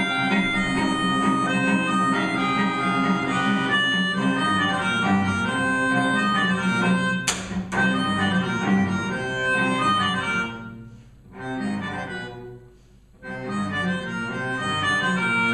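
Melodica and cello playing together live, the melodica holding reedy chords over the cello, in a piece imitating the sounds of a railroad. A sudden sharp high sound cuts through about seven seconds in, and the music twice drops almost to nothing for a moment a few seconds later.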